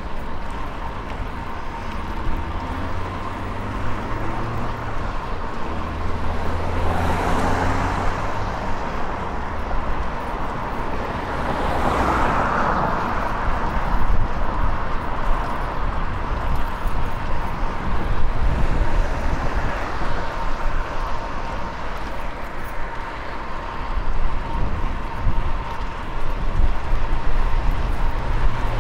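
City traffic noise heard from a fixed-gear bicycle riding through the streets, a steady low rumble under it, with passing vehicles swelling louder about seven and again about twelve seconds in.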